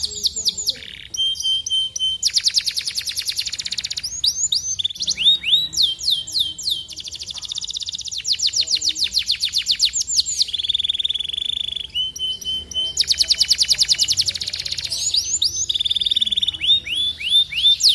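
Domestic canary song: a long, varied run of rapid trills, fast-repeated sweeping notes and buzzy rolls, high-pitched and with no pauses.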